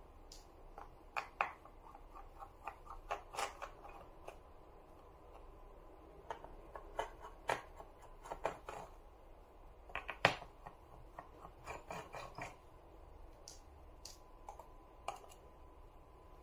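Irregular small clicks and ticks of a precision screwdriver backing out tiny 1.6 mm screws from a laptop's ABS plastic bottom cover, with the loose screws set down on a hard surface.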